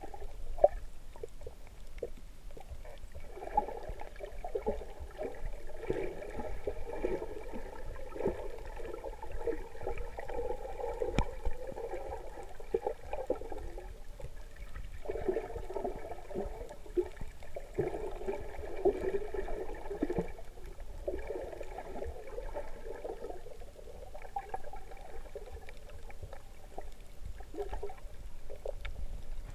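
Underwater water noise: continuous gurgling and churning, with a faint steady hum above it, easing briefly near the middle and again in the last few seconds.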